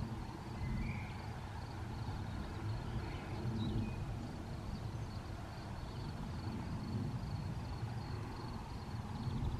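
Wind buffeting the microphone as a low, uneven rumble. Over it come a few short bird chirps and a faint, high, evenly pulsing call.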